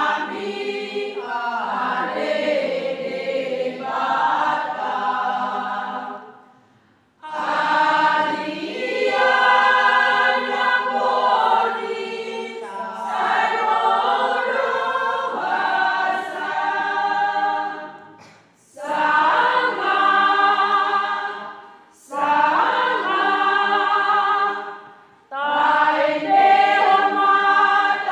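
A women's church choir singing a hymn in several voices, in phrases separated by short breaks, the longest about seven seconds in.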